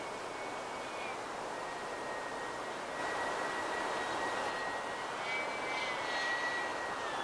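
Twin electric ducted fans of a Freewing A-10 model jet whining steadily in flight, over a broad airy rush. The sound grows louder about three seconds in, and the whine rises slightly, then eases down in pitch near the end.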